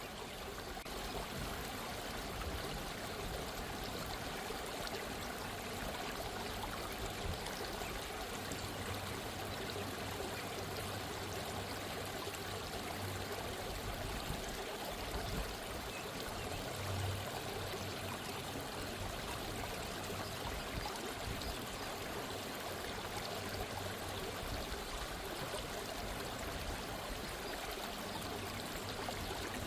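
A gentle stream of running water trickling and babbling steadily.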